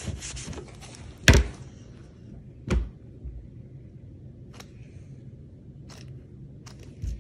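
A paper towel rubbing over a wire soap cutter, then two sharp knocks on wood, the first the loudest, as a loaf of cold-process soap is set into the cutter's wooden box. A few light taps follow as the loaf is settled.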